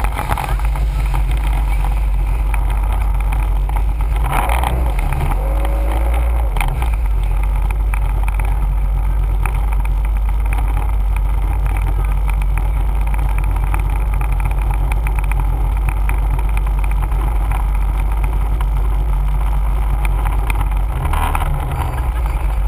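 Sea-Doo personal watercraft's engine running steadily under way, a low rumble mixed with water rushing past the hull.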